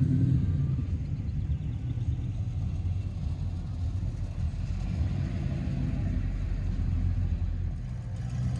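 Classic car engines running with a low, steady rumble as cars drive slowly past.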